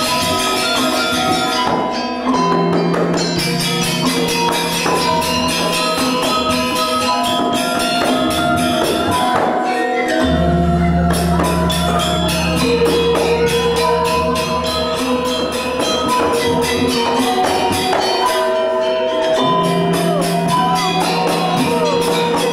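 Balinese gamelan accompanying a Barong dance: bronze metallophones ringing a melody over fast, dense cymbal strokes, with low sustained tones underneath that drop out briefly a few times.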